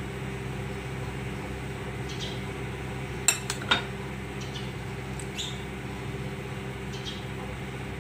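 A steel spoon stirring thick cooked sago in a ceramic bowl clinks sharply against the bowl twice, about three seconds in, with a few lighter taps, over a steady low hum.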